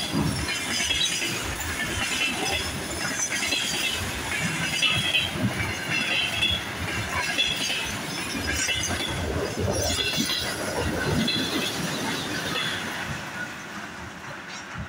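Empty container flat wagons of a freight train rolling past on the rails, with a run of wheel noise that recurs about once a second. The sound fades near the end as the last wagon draws away.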